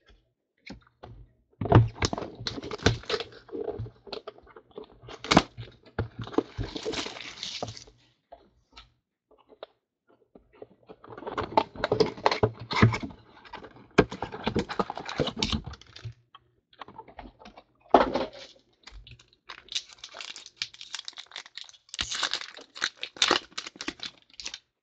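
Trading-card packaging being torn open and handled: crackly tearing and crinkling of a box and pack wrapper, with cards tapped and shuffled in the hands. It comes in several bursts with short pauses between them.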